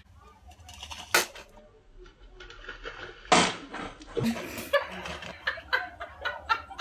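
A sudden loud splutter about three seconds in as a mouthful of water is laughed out, followed by a run of short bursts of muffled laughter into a towel.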